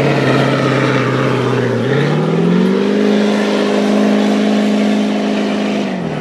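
Ford Super Duty dually pickup's diesel engine working hard under load while pulling a weight sled. The engine note rises about two seconds in, holds steady at the higher pitch, then drops away near the end as the pull ends.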